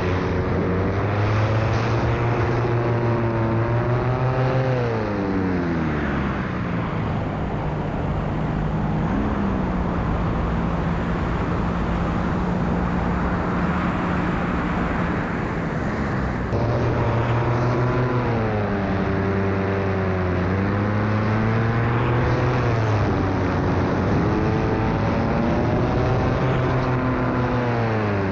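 Polini Thor 250 single-cylinder two-stroke paramotor engine running in flight, over a steady rush of wind. Its pitch drops about five seconds in as the throttle is eased, holds lower, then rises again around sixteen seconds and swings up and down with throttle changes, dipping once more near the end.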